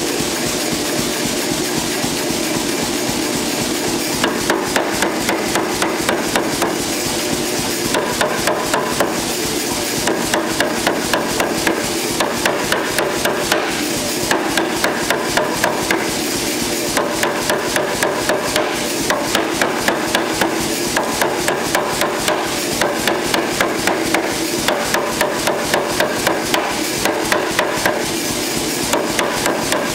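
Power hammer striking a red-hot bar of 3/4-inch square steel on a stepped bottom die, in rapid runs of blows at about four a second with short pauses between runs. The blows begin about four seconds in, and the machine's steady running hum sits underneath throughout.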